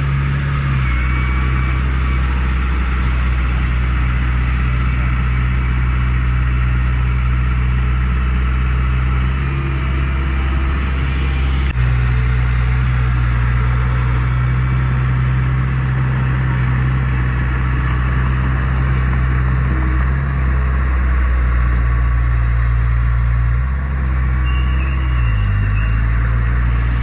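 Heavy diesel engine of earthmoving machinery running steadily under load, with a deep, even engine note that shifts slightly about halfway through and again near the end.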